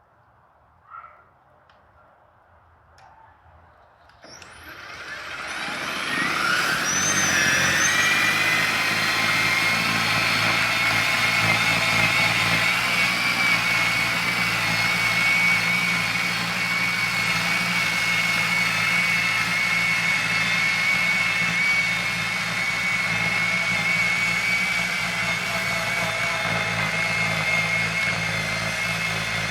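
EGO battery-powered two-stage snow blower starting up about four seconds in: a rising whine as its motor spins up, settling by about eight seconds into a steady high whine over a low hum as it runs. A small click about a second in.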